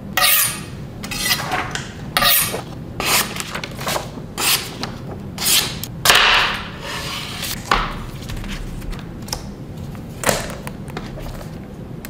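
A series of short rubbing and scraping sounds from hands handling a long Damascus slicer knife and its packaging. Near six seconds in, a longer, louder papery swish as the blade slices through sheets of paper.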